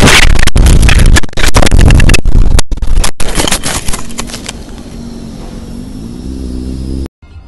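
Crash noise: loud scraping and tumbling with sharp knocks as the camera's vehicle goes down and the camera rolls into roadside grass. It fades over a few seconds into an engine running steadily, which cuts off abruptly near the end.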